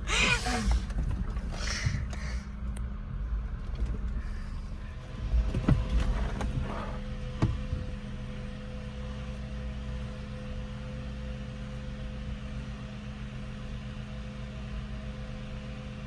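Suzuki Jimny engine running steadily at low speed, heard from inside the cabin. Branches scrape and knock against the body several times in the first seven seconds or so, then only the steady engine hum remains.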